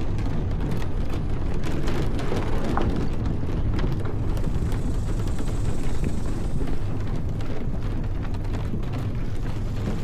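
Steady low rumble of wind buffeting the camera microphone while riding, with scattered small clicks and ticks over it.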